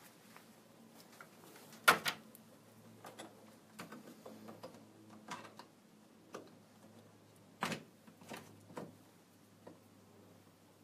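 Scattered clicks and knocks of handling at a wood lathe. A sharp click about two seconds in is followed by a faint, low, steady hum, a small gas torch lit and burning with a blue flame. A second loud knock comes near eight seconds.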